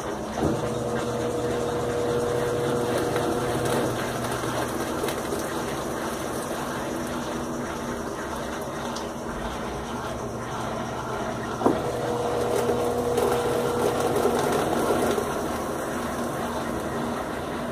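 Top-loading washing machine running, with a steady churning noise. Twice, about eleven seconds apart, a click is followed by a motor whine lasting about three and a half seconds.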